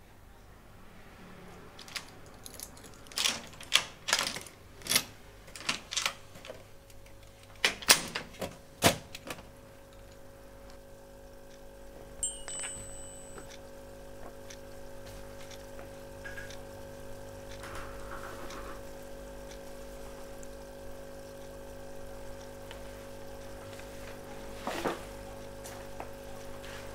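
A string of sharp, irregular knocks and clicks, then a steady hum of several held tones that sets in about six seconds in and lasts to the end.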